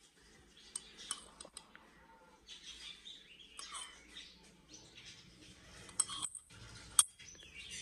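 A metal spoon scooping yogurt and clinking against ceramic bowls, a few light clicks, the sharpest two near the end. Faint bird chirps behind.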